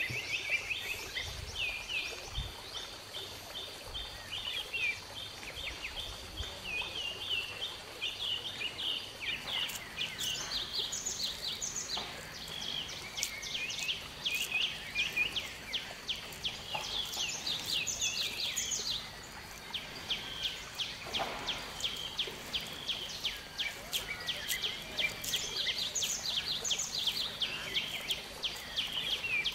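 Birds chirping and calling: a dense run of short, quick, repeated high chirps that goes on throughout and grows busier partway through.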